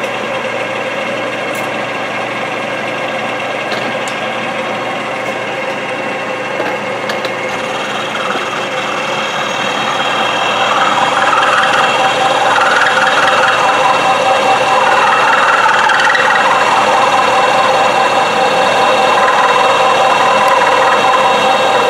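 Ajax milling machine running with a 1-inch end mill cutting a slot into a metal tube: a steady machine whine with several held tones and the chatter of the cut, getting louder about halfway through.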